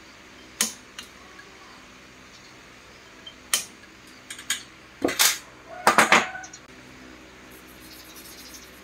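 Metal hand tools, pliers and tweezers, clicking and clinking against a circuit board: a few separate sharp clicks, then a quick run of louder clinks about five to six seconds in. Near the end, a soft scrubbing of a toothbrush on the board.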